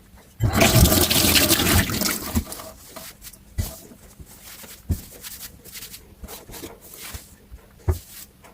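Water running from a kitchen tap into the sink for about two seconds, then a few light knocks of dishes or utensils against the sink.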